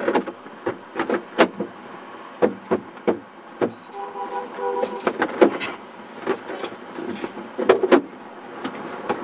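Street traffic noise broken by a string of sharp clicks and knocks, with a short held tone of several pitches about four seconds in.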